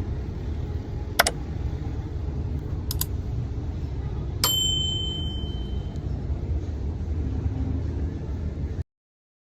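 A steady low rumble with a few sharp clicks and one bell-like ding about four and a half seconds in; the sound cuts off abruptly near the end.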